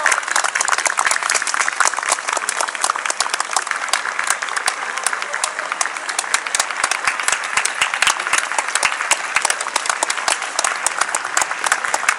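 Spectators applauding steadily, with many sharp single claps close at hand, as marathon runners come in to the finish.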